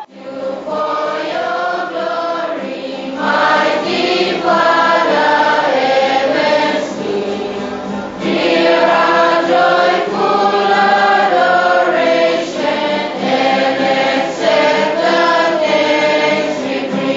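A choir of children singing a hymn together, in sung phrases with brief breaks between them.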